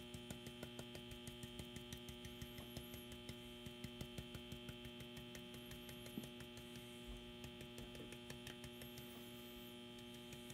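Stiff bristle stippling brush dabbing a coating onto a wooden decoy in a quick, faint, steady tapping of about four to five dabs a second, over a steady electrical mains hum.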